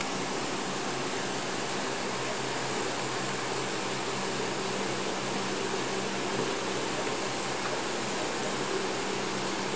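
Steady machinery hum with a constant hiss, even throughout and without separate knocks.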